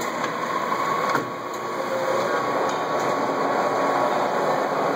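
Jones & Lamson turret lathe running with its spindle turning: a steady mechanical running noise with a thin high whine that drops away about a second in, and a few light clicks.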